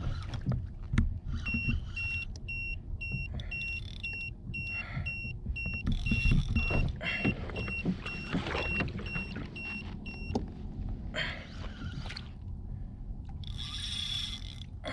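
An electronic beep repeating about twice a second for around nine seconds, then stopping, over rumbling wind and water noise and knocks from the rod, reel and kayak as a fish is fought on the line.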